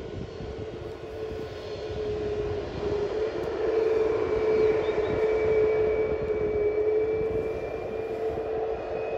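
Boeing 737 MAX 8-200's CFM LEAP-1B turbofan engines running as the airliner lines up on the runway: a steady engine whine that grows louder about three seconds in, with a higher whine joining it.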